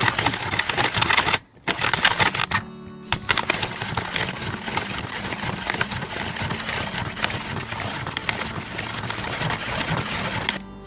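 Plastic toy snow cone maker cranked by hand, its shaving drum grinding and crunching an ice cube into snow with a rapid clicking rattle, with a brief break near the start. Background music plays faintly underneath.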